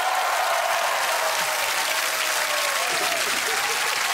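Studio audience applauding, with a few whooping voices rising and falling above the clapping.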